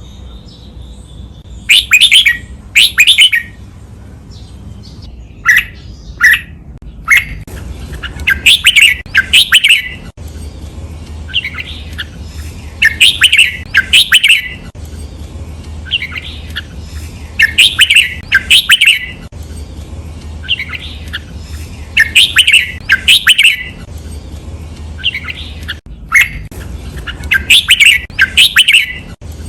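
Red-whiskered bulbul singing its song over and over: loud, clear phrases of chirping notes about every four to five seconds, most of them doubled as two quick bursts. A faint low hum runs underneath.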